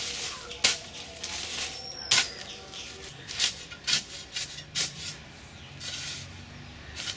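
Steel shovel blade chopping and scraping into hard earth: a series of irregular sharp strikes, roughly a second apart, with gritty scraping of soil between them.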